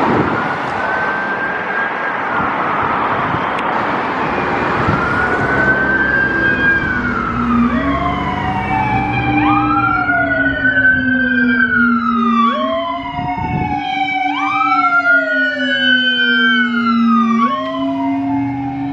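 Sirens of several fire trucks wailing, each rising quickly and falling slowly, overlapping out of step with one another. A steady low drone runs beneath them, and a loud rushing noise fills the first few seconds.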